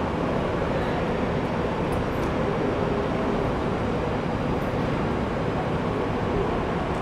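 A two-car Tatra T3SUCS tram set standing at a stop amid city street noise: a steady hum and rumble with a faint constant tone, and no distinct events.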